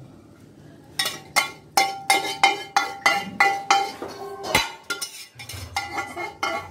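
A long metal ladle stirring thick dal and striking the sides of a metal kadai: a quick run of sharp, ringing clinks, about three a second, starting about a second in.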